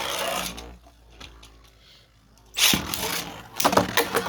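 3D-printed Beyblade spinning tops launched into a plastic stadium. The first top's loud launch whir dies down to a faint spinning hum. About two and a half seconds in, a second top goes in with a loud rip, and the tops clatter against each other and the stadium in quick sharp knocks.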